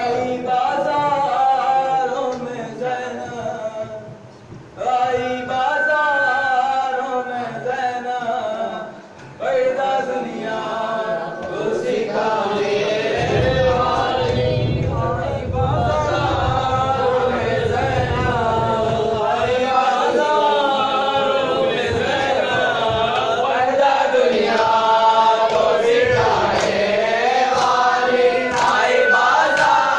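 A group of men chanting a nauha, a Shia mourning lament, together in one melody. The singing breaks off briefly twice in the first ten seconds.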